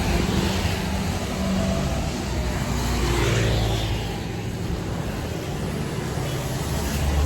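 Road traffic noise: a steady rush of passing vehicles, one car going by about three seconds in.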